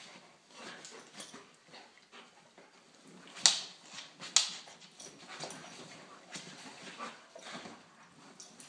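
Two dogs play-fighting on a couch: scuffling and soft dog noises, with two sharp, loud sounds about a second apart midway through.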